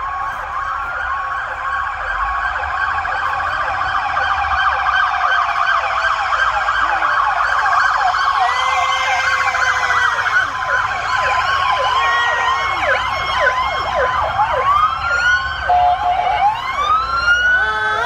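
Several emergency-vehicle sirens from a convoy of fire engines and a command SUV, sounding together in overlapping wails and fast yelps that grow louder as they approach. Near the end one siren winds upward in pitch.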